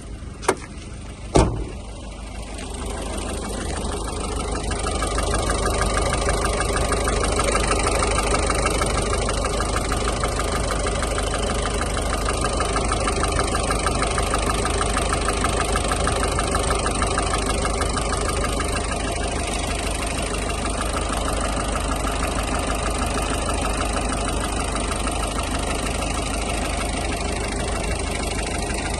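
Peugeot 1.6 HDi (9HD) four-cylinder turbodiesel running at a steady idle. Two sharp clicks come in the first second and a half, and the engine grows louder over the next few seconds before settling.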